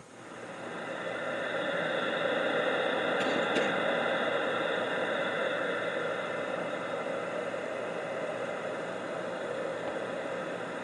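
CB radio receiver static: a steady hiss of band noise that swells up over the first couple of seconds and holds, with no voice coming back on the channel.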